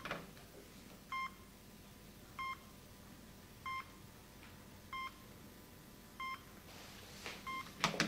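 Short electronic beeps, each a single high tone, repeating evenly about every second and a quarter, like a telephone signal tone or electronic ringer.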